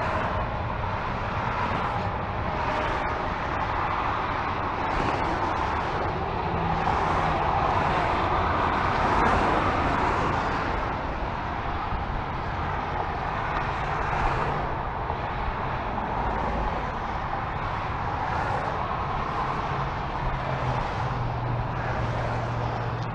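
Steady interstate freeway traffic: cars passing beneath on the multi-lane highway, their tyre and engine noise swelling as each group goes by, loudest about nine seconds in.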